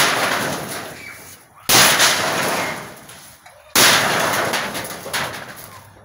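Sheet-metal shed being smashed in: three loud crashes about two seconds apart, each fading out over a second or more as the panels crumple.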